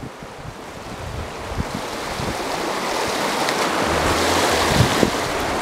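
Creek water rushing over rapids below a small waterfall, a steady noise that grows gradually louder.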